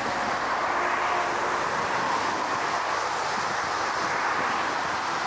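Airbus A380's four jet engines on final approach: a steady rushing roar, with some wind on the microphone.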